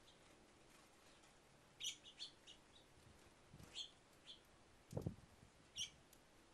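Small birds giving short, high chirps, a few at a time with pauses between. There are a couple of soft, low thumps in the second half.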